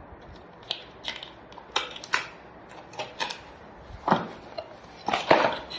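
Corrugated cardboard shipping box being torn open and handled: a run of irregular sharp crackles and scrapes, the loudest about four and five seconds in.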